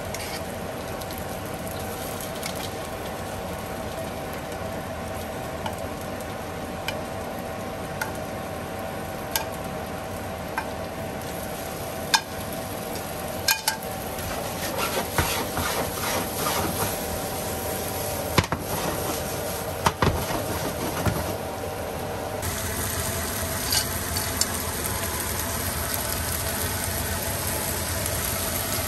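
Yogurt-marinated chicken sizzling in hot oil over fried onions and spices in a pot, with scattered clinks of a utensil against the pot as it is stirred, busiest in the middle stretch. A faint steady hum stops about three quarters of the way through.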